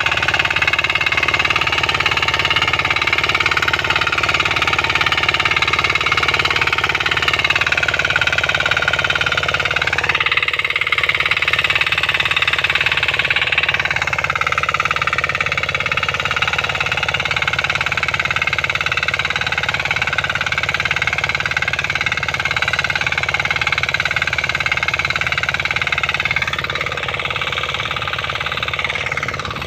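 6 hp diesel power weeder's single-cylinder engine running steadily with a fast, even firing beat as its rotary tines till the soil. It grows a little fainter near the end.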